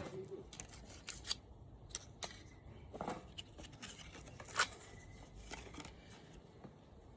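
A small plastic-packaged squishy toy being opened by hand: scattered short, sharp clicks and crinkles, the loudest about four and a half seconds in.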